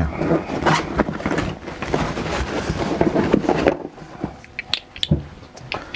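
Someone rummaging through a container for a small tripod: dense rustling with knocks and clatter for about four seconds, then a few scattered clicks.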